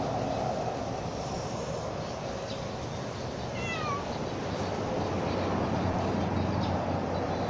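Orange tabby stray cat giving one short meow that falls in pitch, about halfway through, over steady background noise.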